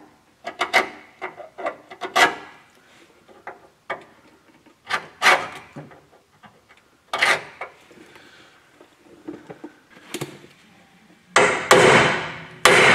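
Short scratches and clicks of a vernier caliper's jaw scribing marks on a steel truck chassis rail, spaced a second or two apart. Near the end come two louder rasping scrapes, each about a second long.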